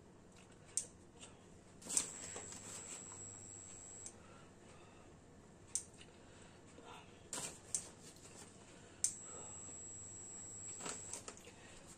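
Plastic bag of grated Gouda crinkling and rustling in the hand as the cheese is shaken out, with scattered sharp crackles. Twice a faint high whine sets in with a crackle and holds about two seconds.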